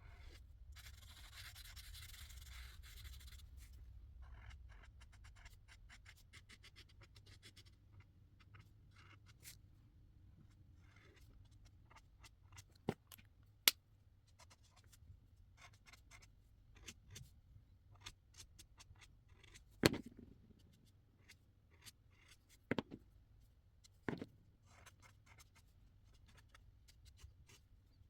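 Marker tips scratching and tapping on paper, faintly, with a longer run of scratchy strokes near the start and a few sharp clicks or knocks around the middle.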